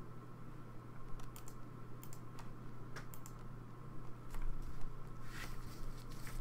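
Irregular keystrokes and clicks on a computer keyboard, sparse at first and busier in the second half, over a steady low hum.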